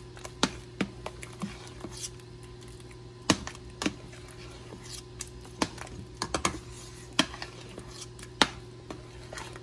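Metal spoon clinking and scraping against the sides and bottom of a stainless steel stockpot as thick soup is stirred: irregular sharp taps, about a dozen, over a steady low hum.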